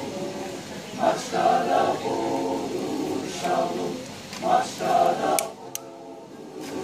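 Mixed polyphonic choir of men and women singing a cappella, in sustained phrases that ease off briefly near the end.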